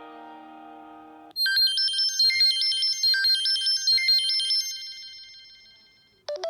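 Samsung Galaxy Note 3 Neo ringtones. A sustained plucked-string ringtone is cut off about a second in by a bright, high-pitched ringtone of quick repeating notes, which fades out near the end.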